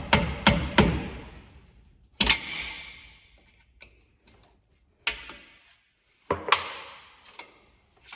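Sharp metal-on-metal knocks with ringing tails, as the old axle seal is pried and knocked out of a GM 10-bolt rear axle housing. A quick run of about four strikes comes at the start, then single strikes every second or two.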